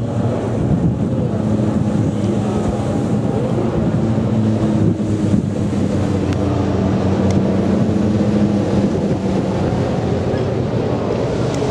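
Single-engine propeller airplane droning overhead, its pitch drifting slightly as it flies, with wind buffeting the microphone.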